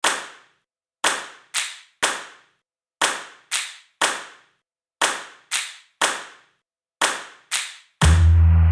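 Sharp, echoing claps in a steady rhythm, about one a second with an extra clap half a second after every other one. About eight seconds in, an electronic track with heavy bass comes in.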